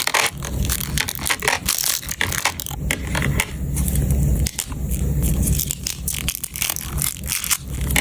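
Batteries clicking and clattering against each other and a plastic storage case as they are handled and slotted in one by one, in a dense, irregular run of clicks and scraping.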